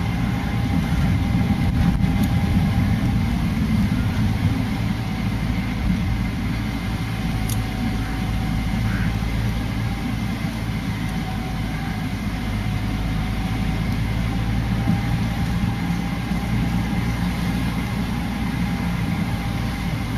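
Motor vehicle engine running steadily at low speed: a continuous low drone with faint steady tones and road noise, without any revving.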